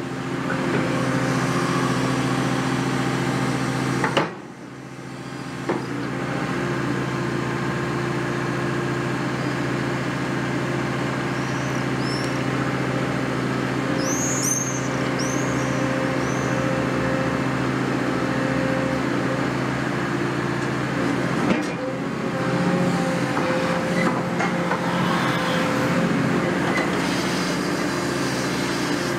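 Caterpillar 330F excavator's diesel engine running steadily while its hydraulics swing the crusher attachment. The sound drops out briefly about four seconds in, and a few sharp knocks stand out.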